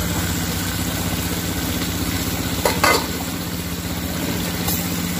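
Hilsa frying and sizzling in a cooking pot, with a utensil clicking against the pot a few times, over a steady low engine-like hum.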